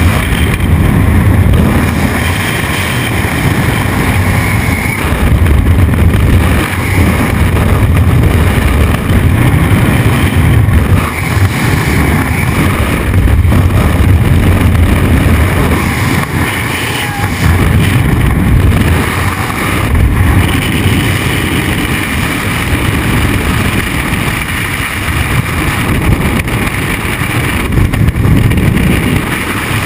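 Freefall wind rushing over a skydiver's camera microphone: loud, steady, deep buffeting that swells and eases every few seconds.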